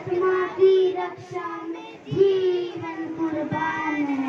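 A group of children singing together, with long held notes; one note slides slowly down over the last two seconds.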